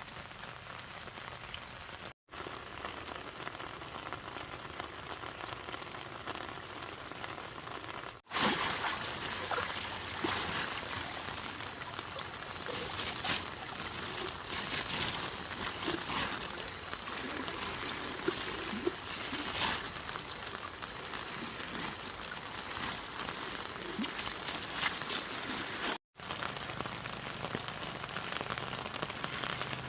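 Steady rain falling, with many scattered drop impacts. The sound breaks off for an instant three times, and the rain is louder from about a third of the way in until near the end.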